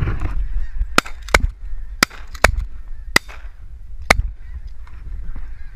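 Shotguns firing about six quick shots over three seconds at a flock of geese, which keep honking in the background throughout. The shots come in pairs, about half a second apart. A burst of rustling as the hunters rise comes just before the first shot.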